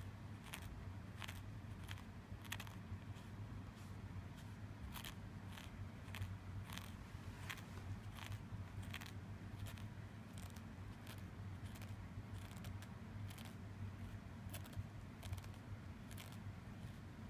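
Cat's tongue licking the inside of a plastic Elizabethan collar (cone): short rasping clicks, a little over one a second, at an uneven pace.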